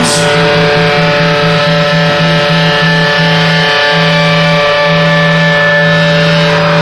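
Live psychedelic rock band holding a loud sustained drone of many held notes, with a crash right at the start. A low note pulses about four times a second, then holds steady from about two-thirds in.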